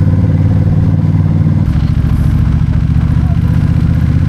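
A motor vehicle's engine running loudly and steadily at an even pitch.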